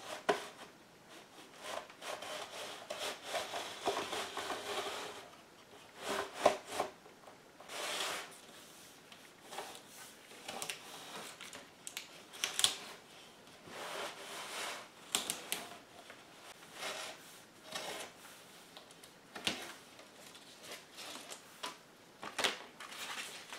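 A razor blade clamped to a wooden block slicing through the edge of a goat-skin rawhide drum head as the block is slid along the tabletop: irregular scraping and rubbing, with some sharp ticks now and then.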